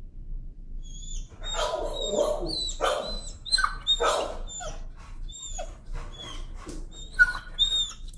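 A timid dog screaming and yelping over and over as a hand grips its collar and neck: fearful protest at being handled there. The cries start about a second in and come in quick succession, high and falling in pitch.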